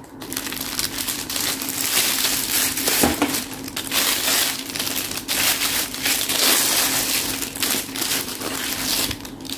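Clear plastic wrapping crinkling and rustling as a bag's crossbody strap is unwrapped and pulled out of it.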